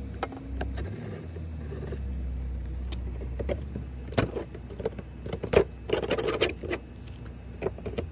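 Utility knife blade scraping and shaving the cut edge of a Jeep Wrangler JK's stock hard-plastic fender flare to trim it smooth: a run of short, irregular scrapes and clicks, busiest about four to six seconds in.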